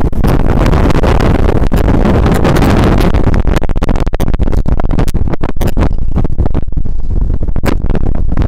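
Strong wind buffeting the microphone: a loud, continuous low rumble broken by rapid crackling gusts.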